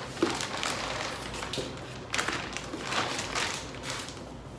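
Clear plastic bag crinkling and rustling as it is handled and opened to take out a garment, in several bouts that fade out near the end.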